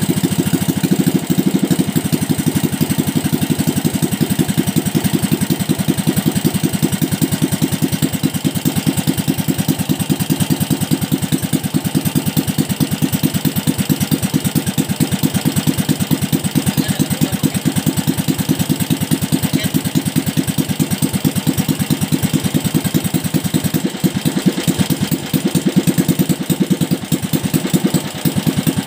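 Small single-cylinder OHV four-stroke engine running steadily on an open exhaust pipe with no silencer, an even firing beat throughout, while its carburettor is being adjusted.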